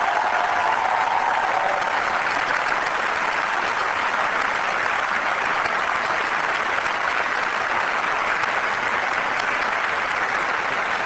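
Large audience applauding steadily, a long unbroken round of clapping.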